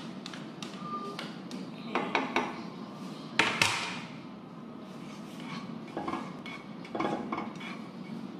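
Slotted spatula knocking and scraping against a nonstick frying pan while stirring chopped onion frying in it, in irregular clusters of clatter with the loudest knock about three and a half seconds in. A steady low hum runs underneath.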